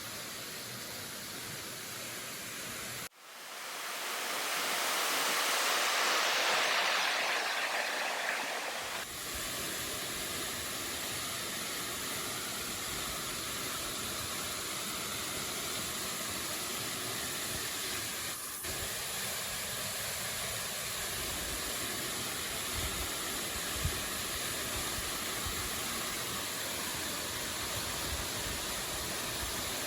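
Steady rushing of a waterfall, a constant even noise. A few seconds in it abruptly turns thin and hissy for about six seconds, then goes back to the fuller rush.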